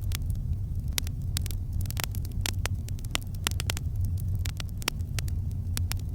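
Campfire crackling: irregular sharp pops and snaps, several a second, over a steady low rumble.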